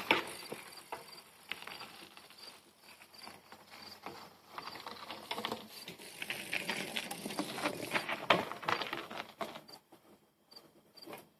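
A BMX bike being ridden for tricks: tyres rolling on the ground with scattered clicks and knocks, and a louder knock about eight seconds in. A faint, regular high ticking runs underneath.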